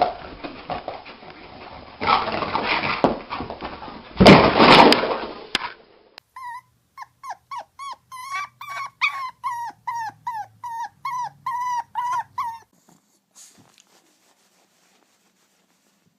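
A rushing noise with two loud swells, then a dog gives a quick run of short, high whimpering yips, about three a second, for some six seconds before stopping.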